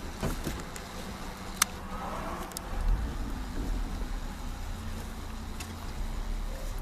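A car running with a steady low rumble, with a few scattered clicks; one sharp click comes about a second and a half in.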